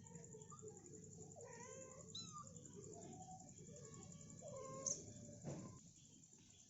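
Mother cat calling her kitten with a run of short, faint meows, the clearest pair about two seconds in. A brief sharp click just before five seconds and a short rustle after it.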